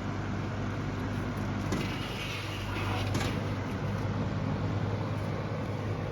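Lasko 3723 box fan running steadily: a low motor hum under the rush of air from the blades, with a short burst of brighter hiss and faint clicks about two seconds in.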